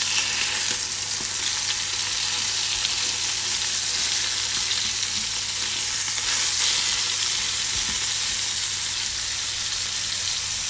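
Seasoned chicken breasts sizzling in hot butter in a non-stick frying pan as they are turned over with tongs: a steady, even hiss of frying.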